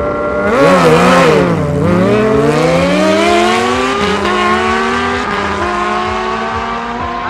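Two sport motorcycles launching from a drag-strip start line. The engines are held at high revs, then about half a second in there is a burst of noise and the pitch dips as they pull away. The engine note then climbs steadily through the gears as they accelerate.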